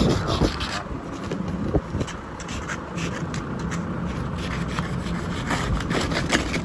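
Car on the move: a steady low rumble with many short clicks and rattles.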